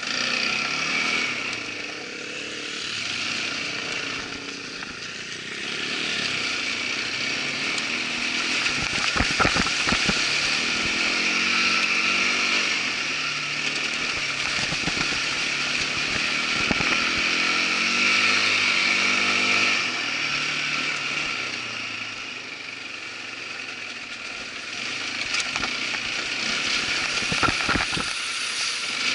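Irbis ATV 200 quad bike's engine running on the move, its pitch rising and falling with the throttle, with a few sharp knocks now and then.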